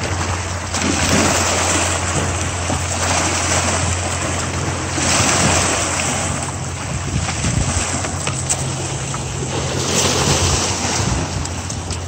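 Surf washing and breaking over the rocks of a jetty, swelling and falling several times, with splashing as a hooked bluefish is dragged through the wash. A steady low hum runs underneath.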